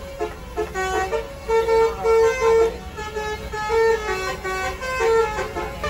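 A tour bus's multi-tone musical horn (a 'telolet' horn) playing a quick tune of short held notes that step between a few pitches.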